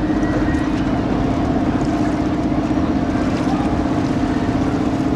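Boat engine running with a steady hum, over a constant wash of water and wind noise on the microphone.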